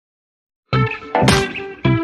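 Dead silence, then background music cuts in suddenly about a third of the way in, with a steady beat.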